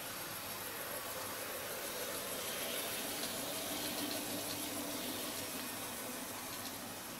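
N-scale Kato GEVO model locomotive hauling a string of freight cars up a 2% graded helix: a steady hiss of wheels on rail and motor running under load, with a faint hum that grows a little in the middle as the train passes close.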